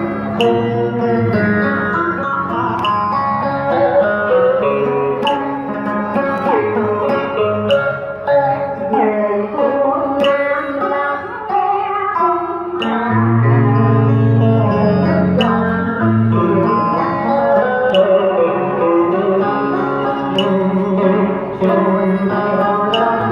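Music: a woman singing a Vietnamese song into a microphone over a backing track with plucked strings and a light beat.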